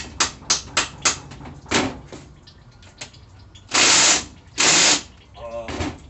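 Metal-on-metal hammer taps, about three a second and then one more, driving a socket onto the rounded-off head of a stripped transmission valve-body bolt, followed about two seconds later by two loud half-second bursts of noise.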